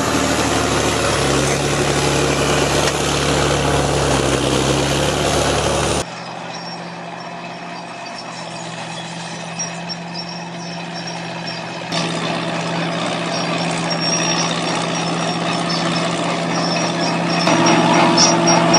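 Heavy diesel engine of a bulldozer running steadily under load. About six seconds in the sound cuts abruptly to a quieter, different engine note, which grows louder again about halfway through.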